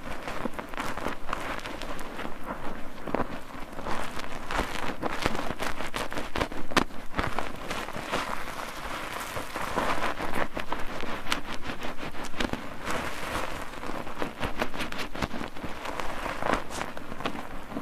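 Bar soap being worked into lather in a soap-foaming net: wet foam crackling with dense, irregular small pops and squishes.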